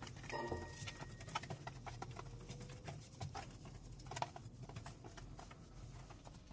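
Sheer lace curtain being slid and straightened by hand on its rod: faint, irregular small clicks and rustling, with a brief thin squeak about half a second in.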